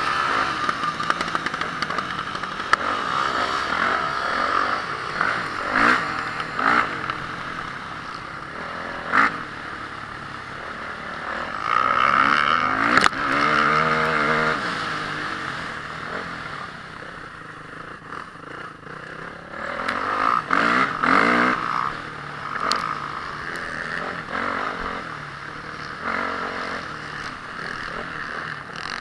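Honda CRF450R motocross bike's single-cylinder four-stroke engine revving hard and easing off, its pitch rising and falling again and again, with clattering and a few sharp knocks.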